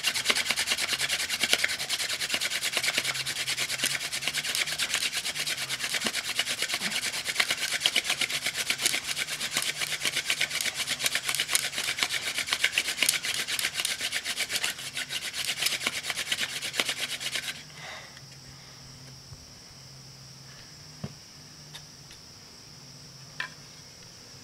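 Wooden hand-drill spindle spun fast between the palms in a wooden fireboard for a friction fire: a dense, steady rasping grind that stops suddenly about seventeen seconds in.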